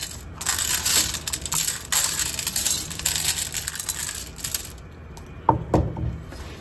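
Dry cat food crackling and rattling: a dense stream of small hard pieces clicking together, then a few louder knocks near the end.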